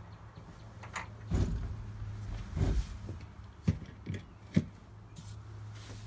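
A handful of knocks and sharp clicks over a steady low hum: two heavier thumps in the first half, then three sharp clicks a little under half a second apart.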